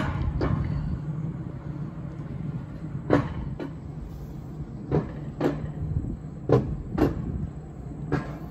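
Alpine mountain coaster cart being hauled up its lift track: a steady low rumble with sharp clacks in pairs every second or two.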